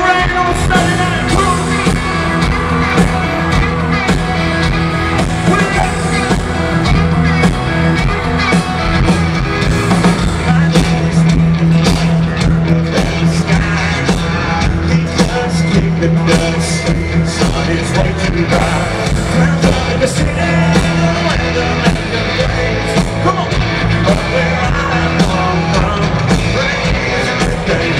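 A live country band playing loudly through a concert PA, with a male lead singer singing over drums, heard from within the crowd.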